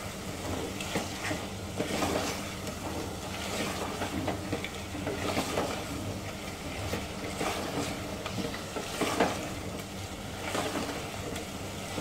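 Mutton and masala frying in an aluminium pressure cooker while being stirred with a spatula: a steady sizzle broken by irregular scrapes and knocks of the spatula against the pot. This is the bhuna stage, with the meat being browned in the spice paste on medium flame.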